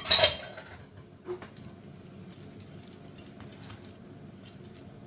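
A metal cake tin clanks sharply once with a short metallic ring, then a smaller knock about a second later, followed by faint light scrapes and clicks of a spatula spreading batter in the tin.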